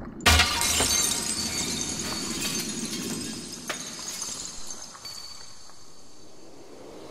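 A sudden loud crash of breaking glass about a third of a second in, followed by shards clinking and the noise dying away over several seconds.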